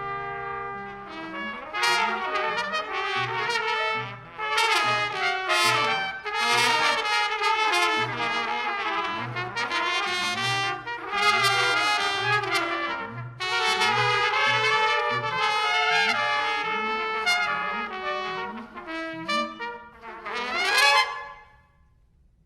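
A group of musicians playing a busy, many-voiced tune over a low bass note repeated about twice a second, ending with a rising swoop and a sudden cutoff near the end.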